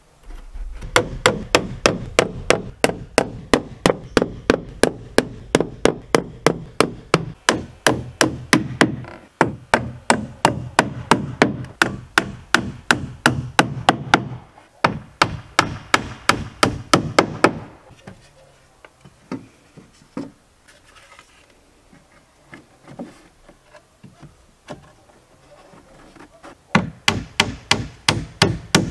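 Hammer driving nails into wooden boards: long runs of quick, even blows, about four a second, broken by short pauses. After that come several seconds of only scattered light taps, then a last run of blows near the end.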